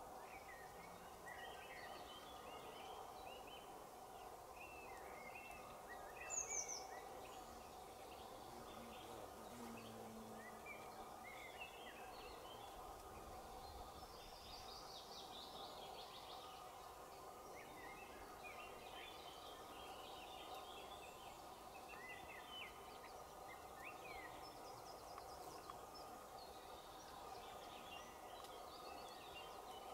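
Woodland birdsong: many small birds chirping and singing faintly over a steady low hum. A sharp, high, falling call about six seconds in is the loudest sound.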